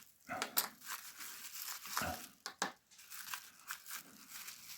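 Packaging being unwrapped by hand: irregular crinkling and tearing, with scattered sharp clicks.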